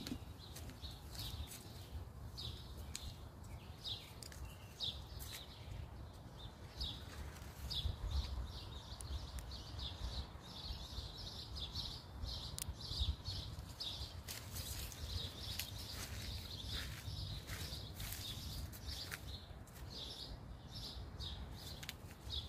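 Small birds chirping in short repeated notes, thickest in a run about two-thirds of the way through, over a low steady rumble.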